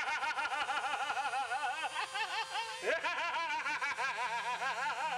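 A person's high, laugh-like vocal warble, its pitch wobbling rapidly up and down, in two long runs with a fresh start a little before three seconds in.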